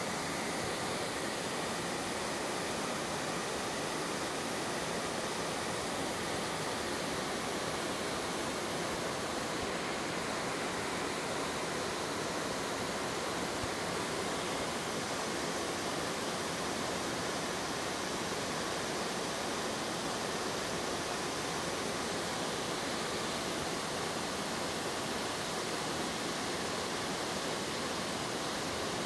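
Waterfall sliding and cascading down a broad, sloping, layered rock face: a steady, unbroken rush of falling water.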